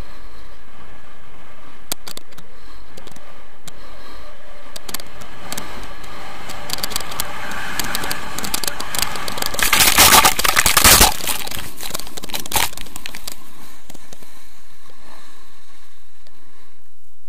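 Skis scraping over packed snow during a fast downhill run, with scattered crackles, building to a loud rush of scraping about ten seconds in and easing off afterwards.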